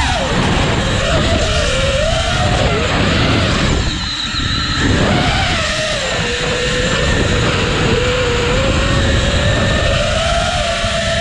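Brushless motors and propellers of an iFlight Nazgul5 V2 5-inch FPV quadcopter on a 4S battery whining in flight, the pitch sliding up and down with the throttle. The whine drops away for a moment about four seconds in, and a constant low rushing noise runs underneath.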